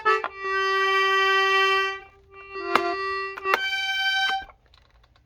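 Hohner Tango II piano accordion sounding single held notes on its treble keys, one after another, each about a second long, with a key click in the middle and silence after about four and a half seconds.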